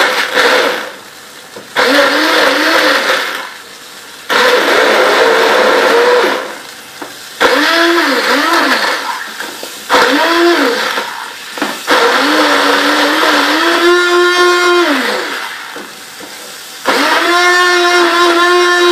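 Electric blender (mixer-grinder) grinding tomatoes with water in repeated short pulses, about seven. The motor spins up, runs steadily for one to three seconds, then winds down.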